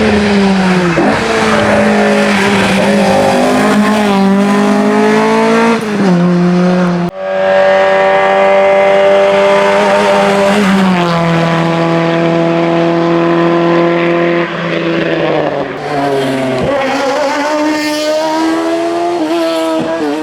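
Hillclimb race car engines at high revs, pitch climbing and then dropping sharply at each gear change. About seven seconds in the sound breaks off abruptly to another car holding a steady high note before shifting down.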